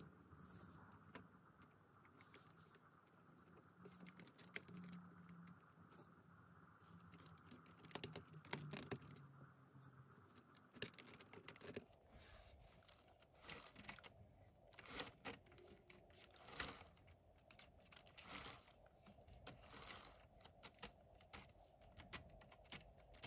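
Faint, irregular clicking and rattling of hard plastic LEGO Technic parts: pieces pushed onto an axle, then a freewheel mechanism turned by hand, with sharper, more frequent clicks in the second half.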